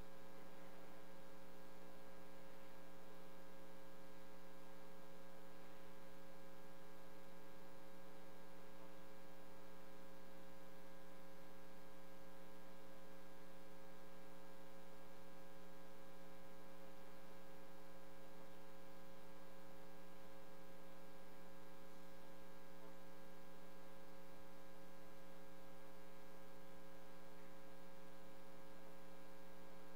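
Steady electrical mains hum, a buzz of several fixed tones that never changes, with nothing else heard.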